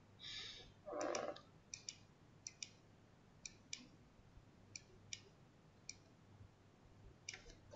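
Faint computer mouse clicks, mostly in quick pairs, repeating every second or so as cells of a table are selected. Two short soft rustling noises come near the start.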